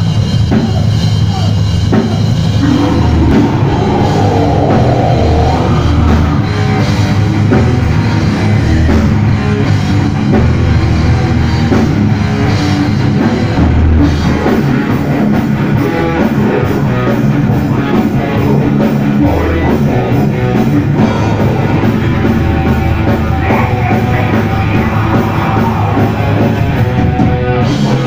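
A heavy metal band playing live at full volume: electric guitars and a drum kit.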